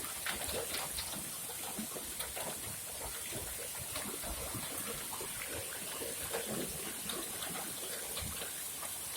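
Rainwater gushing from a drainpipe and splashing into a puddle during a downpour, a steady rush with many small splashes of rain throughout.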